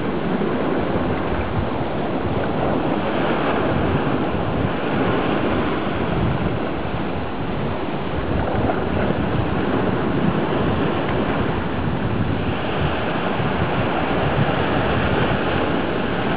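Ocean surf breaking on the shore and washing up around rocks, a continuous rushing of water that swells as each wave comes in. Wind is buffeting the microphone.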